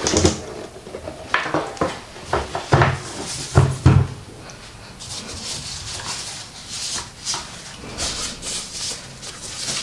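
Cardboard box and packaging being handled: a few dull knocks in the first four seconds, then steady rustling and scraping of cardboard and wrapping.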